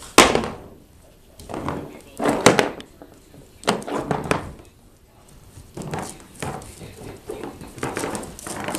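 A single sharp thunk just after the start, then a person's voice in short bursts.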